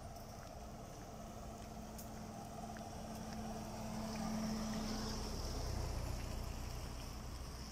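A faint steady hum and low rumble, swelling about four to six seconds in, with a few light ticks over it.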